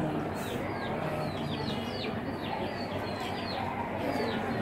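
Birds chirping: a run of short, high chirps that fall in pitch, several a second.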